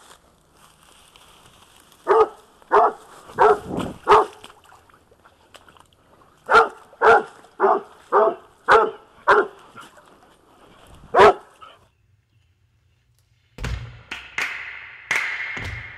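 Coonhound barking treed in short, loud chops: four barks about two seconds in, six more from about six and a half seconds, and a last one near eleven seconds. Music comes in near the end.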